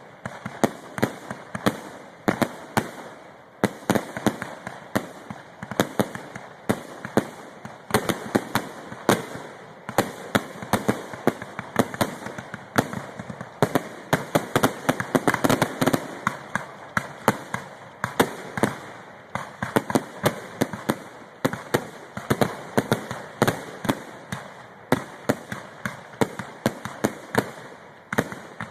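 Fireworks finale: a rapid, unbroken barrage of shell bursts and crackling reports, several bangs a second, growing densest midway.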